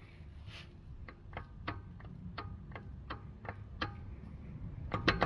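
Worn passenger-side CV axle joint on a 2020 Kia Telluride clicking as the axle is jiggled up and down by hand: a sharp click on each stroke, about twice a second, turning faster and louder near the end. Up-and-down play and clacking like this are the sign of a bad CV axle that needs replacing.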